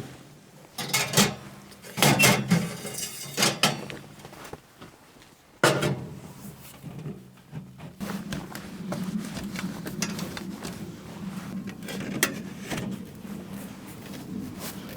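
Camping gear being handled and set up: several knocks and clatters, then from about halfway through a steady low hum with light clicks over it.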